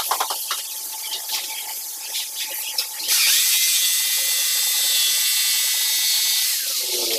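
Handheld circular saw spinning up about three seconds in and cutting through a wooden board with a steady high whine, then winding down near the end. Before it come light knocks and scrapes of the board being handled.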